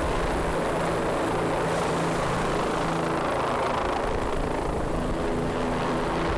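Helicopter running steadily, a dense, even engine-and-rotor noise with a constant low hum.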